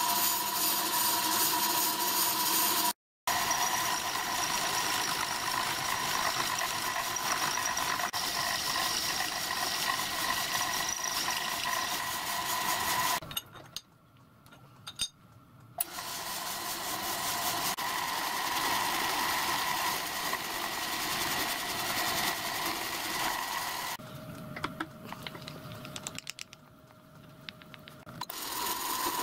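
Pillar drill running steadily with a whine, its bit cutting into a metal casting. The drill stops for a few seconds around the middle and again near the end while the part is indexed round, then runs again.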